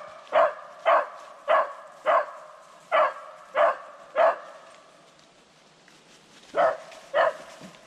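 Beagle barking in sharp single barks, about two a second: seven in a row, then two more after a short pause. The hound is barking at a rabbit that has run into a hollow log.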